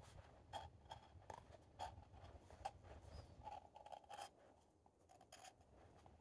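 Faint, irregular short scrapes of a carving knife slicing thin shavings off the rim of a still-green wooden cup, chamfering the edge; the strokes thin out about four seconds in.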